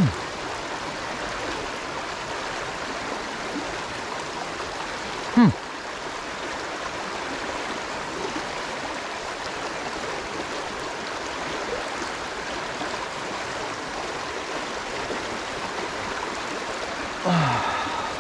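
Steady rush of a flowing trout stream around a wading angler. Two brief, louder low sounds falling in pitch break through it, one about five seconds in and one near the end.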